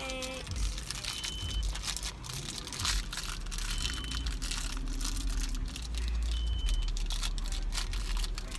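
Small foil wrapper crinkling and tearing in quick, irregular little crackles as fingers pick open a wrapped toy accessory packet.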